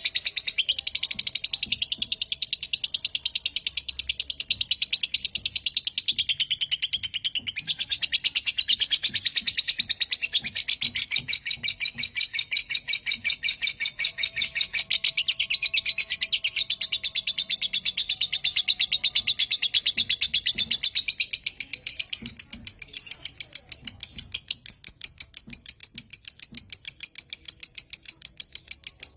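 Lovebird 'kekek' chatter: a long unbroken run of fast, shrill, high chirps repeated several times a second, with a brief falter about seven seconds in.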